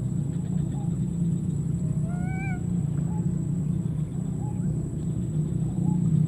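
A baby monkey gives one short whining cry about two seconds in, rising then falling in pitch, with a few faint short chirps around it. A steady low rumble runs underneath.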